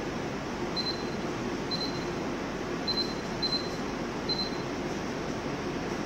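MCZ Maestro pellet-stove control panel beeping as its buttons are pressed: five short high beeps over about four seconds, over steady background noise.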